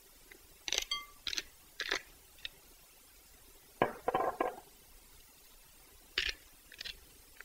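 Hand spice grinder turned in short, crunching bursts over a glass mixing bowl, seasoning it with salt and pepper; about seven separate twists, with a brief ringing clink against the glass about a second in.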